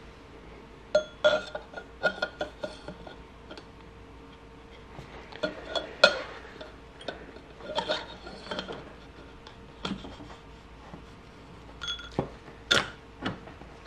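Suzuki GSX-R750 motorcycle fork tubes clinking and knocking as the outer tube is slid over the inner tube and its oiled bushings: a series of short, scattered metal clinks, loudest about six seconds in and near the end.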